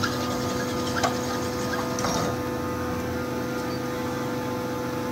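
Sunnen connecting-rod honing machine running with a steady motor hum while an RB26 rod's big end is worked on the honing mandrel, with a few sharp metallic clicks in the first two seconds or so. The rod is being honed back to size after new ARP rod bolts distorted its big-end bore.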